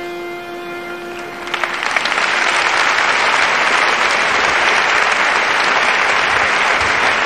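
The last held note of the live music fades out, and about a second and a half in a large concert audience starts applauding. The applause builds within a second and then holds steady and loud.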